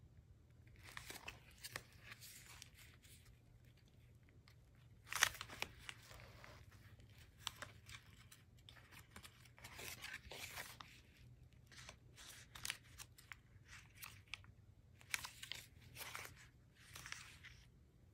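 Thick paper and card tag pages of a handmade junk journal being turned and handled: irregular rustles and crinkles, with a sharper snap of paper about five seconds in.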